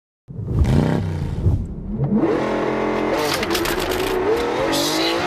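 Toyota GR Yaris's turbocharged three-cylinder engine on launch control: it starts low, revs up about two seconds in, then is held at high revs, waiting to launch.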